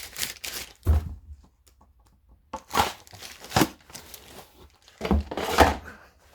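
Chainsaw parts and their packaging being handled: packaging crinkling and rustling, with a few thunks as parts are set down, one about a second in and more about five seconds in.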